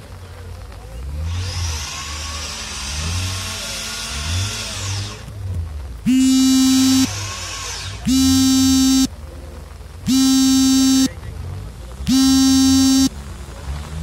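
A vehicle engine revving for about four seconds, its pitch rising and falling, then a loud, steady-pitched horn sounding in one-second blasts every two seconds, four times.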